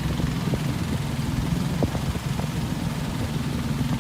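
Small boat's engine running steadily with a low, even drone.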